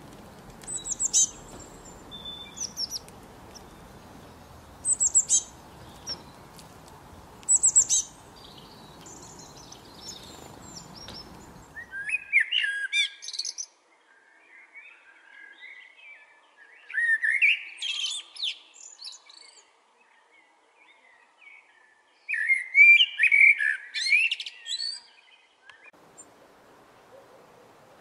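Short high bird chirps over a steady background hiss, then, from about twelve seconds in, a common blackbird singing three song phrases a few seconds apart.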